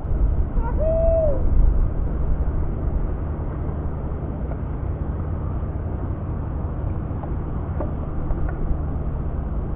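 Steady low rumble with a constant low hum. About a second in comes one short hoot-like call that rises and falls.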